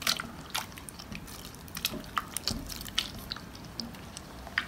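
Thick glue slime being stirred with a utensil in a glass bowl, making irregular wet squelches and small sticky pops.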